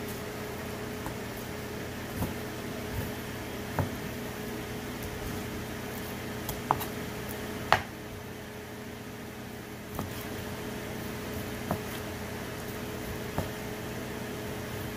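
A cleaver knocking on a cutting board as raw chicken breast is cut into cubes: about nine uneven knocks, the loudest about halfway through, over a steady hum.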